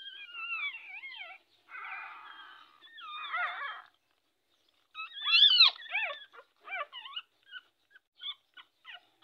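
Newborn puppies crying as they nurse, high wavering whines that slide up and down in pitch. The loudest cries come about five seconds in, then they break into a run of short squeaks.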